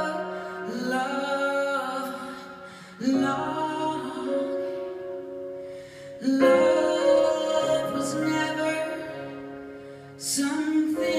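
Stage keyboard playing slow, sustained piano chords, a new chord struck about every three to four seconds and left to fade.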